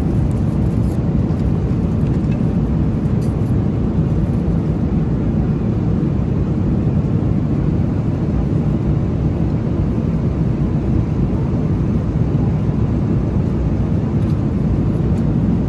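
Steady low roar of an airliner cabin in flight: the jet engines and the air rushing past the fuselage, even and unbroken.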